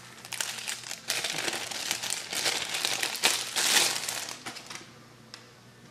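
Plastic packaging crinkling and rustling as a smartphone is handled out of its box, in irregular bursts that stop about five seconds in.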